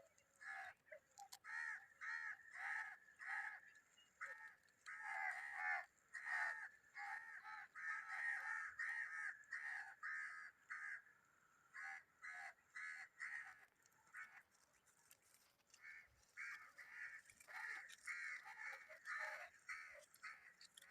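Birds calling over and over in quick runs of short calls, several a second, with a few short breaks.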